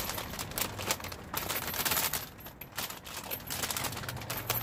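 Loose coins clinking and jingling as they are handled, a rapid irregular run of small metallic clicks that eases off for a moment a little past two seconds in.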